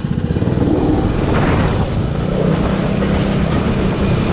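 Arctic Cat 120 youth snowmobile's small single-cylinder engine running as the sled rides across the snow, a fast low pulsing that settles into a steadier note about two seconds in.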